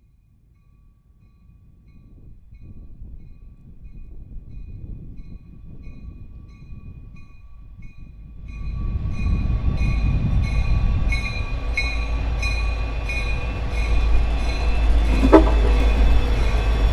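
A six-axle diesel locomotive approaching and passing slowly at the head of a double-stack container train. Its deep engine rumble grows from faint to loud about halfway through, with a bell ringing rhythmically above it and a brief squeal near the end.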